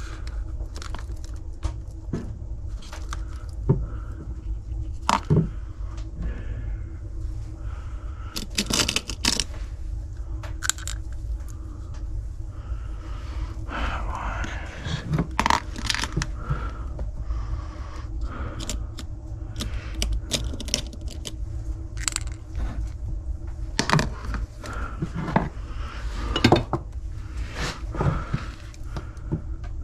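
Irregular metallic clinks, knocks and scrapes of objects being handled, over a steady low rumble.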